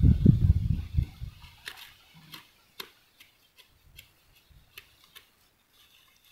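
Low wind buffeting on the microphone for about the first second, then scattered small dry clicks and snaps, a few a second, from weeds and grass stems being pulled by hand among rice stubble.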